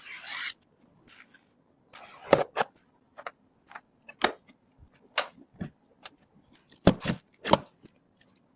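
Hard plastic and metal computer parts being handled and fitted during a PC build: a brief rustle at the start, then scattered clicks and knocks. The loudest knock comes about two and a half seconds in, and two come close together near seven seconds.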